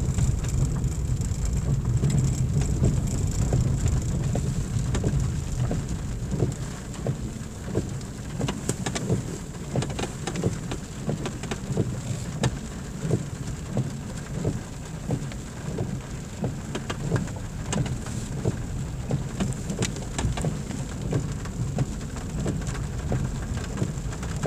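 Inside a car's cabin on a gravel track in the rain: a steady low rumble of tyres and engine, with irregular sharp ticks of raindrops hitting the windscreen and roof, becoming more frequent after about five seconds.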